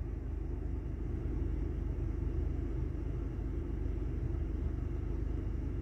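Steady low rumble inside the cabin of a Chery Tiggo 8 with its engine running at idle.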